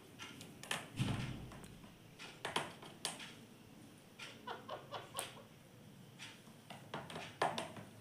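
Indian ringneck parakeet tapping and clicking about a mirror on a wooden tabletop: a scatter of short, irregular taps, with a duller thump about a second in.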